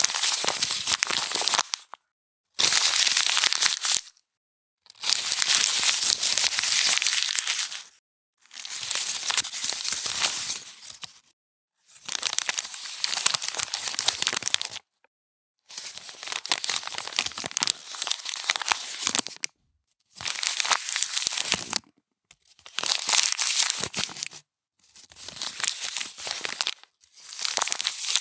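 Sheets of paper being crumpled by hand, a crackling rustle in about ten separate takes of one to three seconds each, every take cut off by a short gap of silence.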